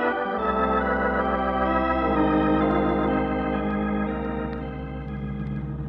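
Organ music bridge: sustained organ chords that shift a couple of times and ease down near the end, over a low steady rumble.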